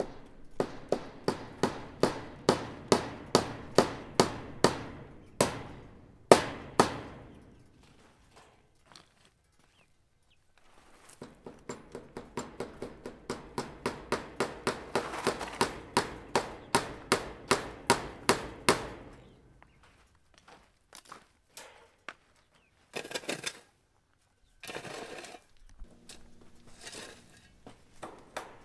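Metal hand tool chopping into rocky soil: quick, regular strikes, about three a second, each with a short clink of metal on stone, in two runs of several seconds. A few short scraping bursts follow near the end.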